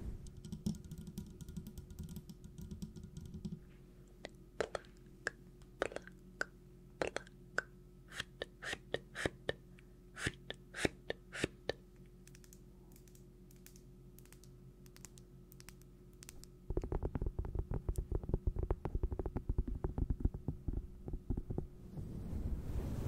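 Light, sharp tapping and clicking: a few scattered taps, then a loose run of clicks for several seconds, a quiet spell, and near the end a dense burst of rapid clicking for about five seconds.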